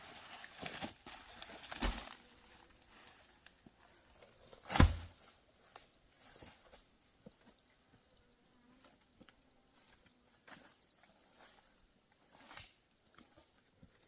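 Insects shrilling steadily at a high, even pitch. A few knocks and scuffs come in the first two seconds, and a single sharp thump about five seconds in.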